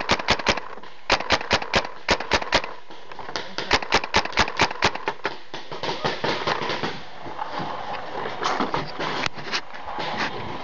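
Paintball markers firing rapid strings of shots, at about eight shots a second, in several bursts. The shots thin out to scattered single pops in the second half.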